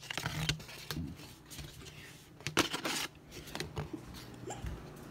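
Paper plates scraping and rustling as one is slid off a stack on a wire pantry shelf and carried off, with scattered light knocks and rustles of handling; the loudest cluster comes about two and a half seconds in.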